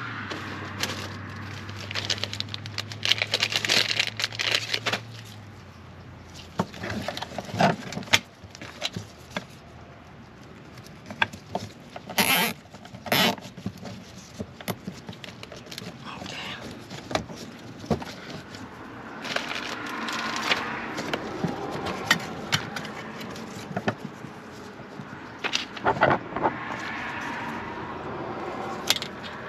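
Gloved hands handling a wiring harness and plastic trim: rustling, scattered clicks and scraping. Two short, sharp rasps come about twelve and thirteen seconds in, a plastic cable tie being pulled tight around the wiring.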